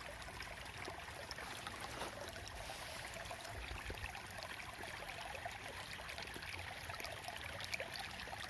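Faint, steady trickle of water flowing along a drainage ditch.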